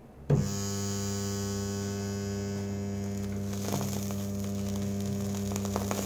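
A microwave oven transformer rewound as a welder, with a thick cable secondary, is switched on about a third of a second in and hums steadily at mains frequency under load. Faint crackles come from the welding rod arcing across the output clamps, once a few seconds in and again near the end.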